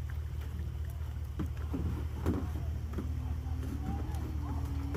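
A speedboat's outboard motor running out on the lake, heard from afar as a faint steady drone that comes through more clearly in the second half.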